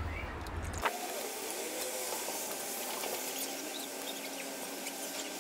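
Stream of water pouring from a garden hose into a vat of water, a steady splashing hiss. A faint steady hum joins about three seconds in.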